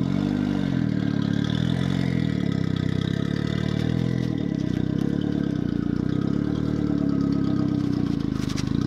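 Mazda Miata's four-cylinder engine running at low revs while the car reverses slowly up a driveway, the engine note rising and falling a little, over and over.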